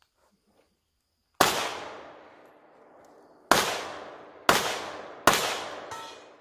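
Four handgun shots: one about a second and a half in, then three more about a second apart near the end. Each shot is a sharp crack followed by an echo that fades over about a second.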